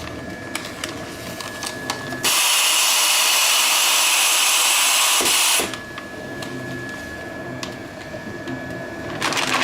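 SF-150 horizontal continuous band sealer running with a steady whine. From about two seconds in, its gas-flush nozzle blows a loud hiss of air into the bag for about three seconds and then cuts off abruptly. There are clicks and rustling near the end.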